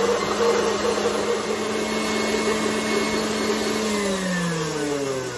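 KitchenAid stand mixer running on high, its wire whip beating egg whites in a stainless steel bowl: a steady motor hum that drops in pitch over the last second or so as the mixer slows down.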